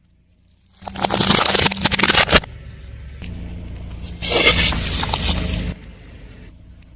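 A car tyre rolls over and crushes objects, giving a loud burst of crackling and crunching about a second in. A second, hissier stretch of crushing follows over the low hum of the car's engine.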